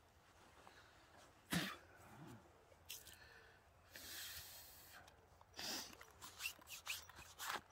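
Camp kit being handled at close range: a sharp knock about a second and a half in, a metal mess tin lifted and set down, and a short hissing rush followed by a run of small clicks and rustles near the end.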